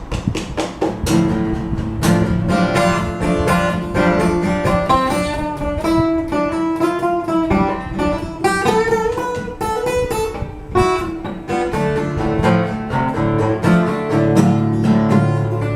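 Acoustic guitar playing an instrumental break of an old-time folk tune, a picked melody over steady rhythmic strumming.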